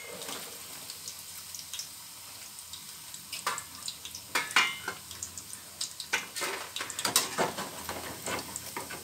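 Paneer cubes deep-frying in hot oil with a steady sizzle, while a steel slotted spoon scrapes and clinks against the pan as they are stirred and lifted.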